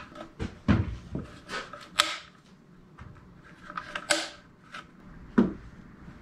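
Scattered clicks, clacks and knocks of car parts and tools being handled in an engine bay, with a single dull thump near the end.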